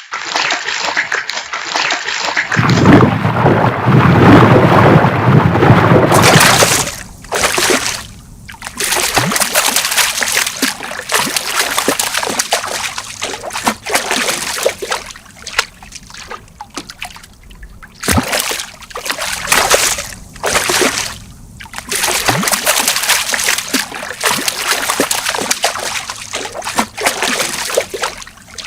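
Fish splashing at the water's surface: uneven bursts of splashing and sloshing with trickling and dripping between them. The splashing is loudest a few seconds in, then comes in repeated bursts with short quieter gaps.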